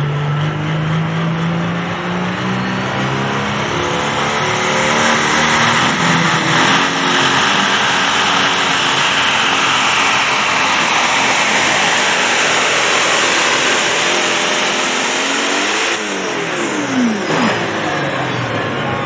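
Diesel engine of a red International Harvester pulling tractor at full throttle, pulling a sled. It climbs to a steady high-revving run, then about 16 seconds in the pitch falls and wavers as it comes off full power. The run ends because something on the tractor broke.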